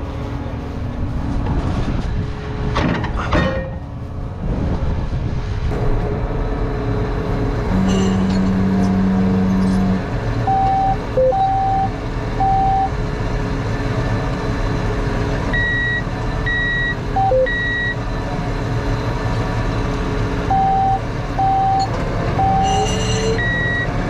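Tractor engine running steadily under an electronic monitor alarm: one long low tone, then repeated sets of three short beeps that alternate between a middle and a higher pitch.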